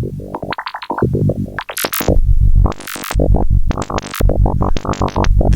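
Eurorack modular synthesizer patch playing an irregular run of short, sharp electronic blips, with deep bass pulses joining in from about two seconds in. The tones are pinged and shifted by control voltages that are being mixed and attenuated.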